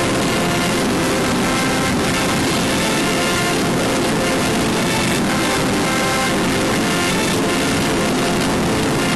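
Loud, dense music-like audio played backwards: a continuous noisy bed with stacks of held tones that come in and fade out about once a second.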